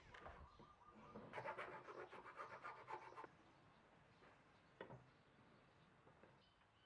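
Near silence broken by about two seconds of faint, rapid scratching clicks, then a single soft click.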